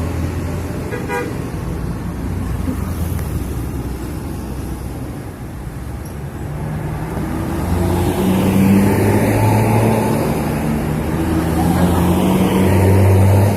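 Bus 'telolet' multi-tone horn playing a string of held notes that change pitch, over the running bus engine. The notes come mostly in the second half, growing louder toward the end.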